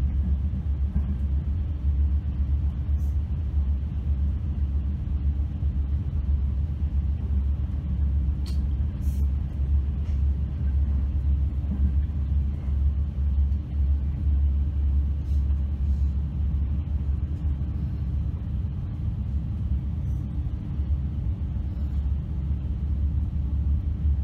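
Steady low rumble of a moving train heard from inside the carriage, with a few faint clicks.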